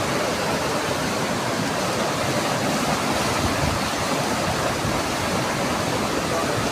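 Floodwater in a river rushing loudly and steadily.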